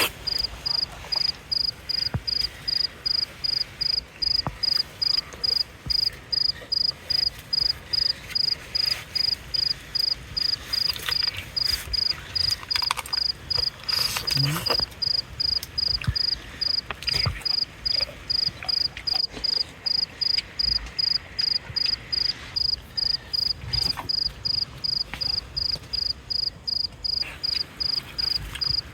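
An insect chirping in a steady, even rhythm: a single high note pulsed about three times a second, with faint scattered clicks and knocks underneath.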